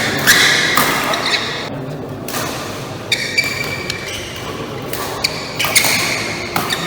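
Badminton rally in a large hall: sharp cracks of rackets hitting the shuttlecock, short high squeaks of court shoes and thuds of footwork, all echoing.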